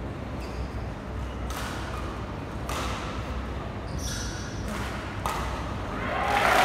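Room tone of a large indoor sports hall between badminton rallies: a steady low hum with a few brief scuffs and squeaks, and a rushing noise that swells near the end.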